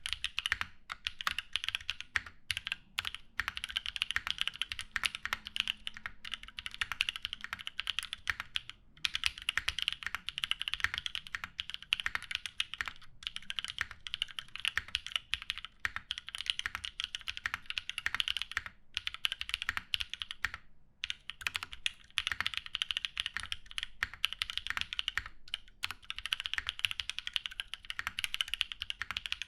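Continuous fast typing on an Equalz One mechanical keyboard with lubed Drop Holy Panda tactile switches, a polycarbonate plate and GMK keycaps, broken by a few brief pauses.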